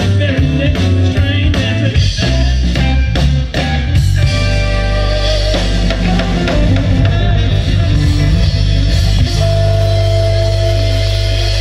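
A live blues band plays: drums, electric guitars, bass and saxophone. The drum beat stops about four seconds in and the band holds one long sustained chord, with a single high note held over it near the end.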